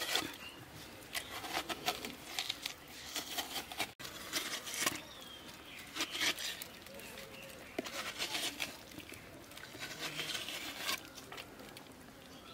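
Steel spoon and knife scraping and scooping the flesh out of a watermelon shell, in short scrapes at irregular intervals.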